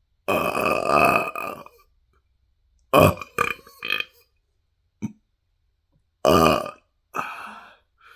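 A person burping loudly several times: one long burp lasting over a second, then a run of shorter burps in quick succession about three seconds in, and two more near the end.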